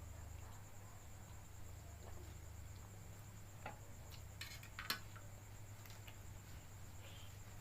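A few faint sharp clinks of cutlery against a plate during a meal, the loudest near two-thirds of the way in, over a steady low hum and a thin high whine.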